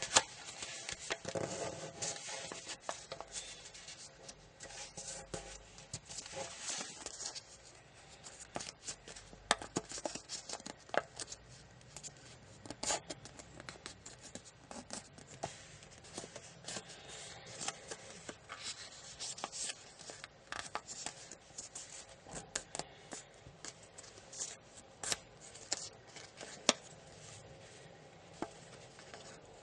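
Sheet of origami paper being folded and creased by hand: a steady rustling and crinkling with many sharp crackles as the folds are pressed flat.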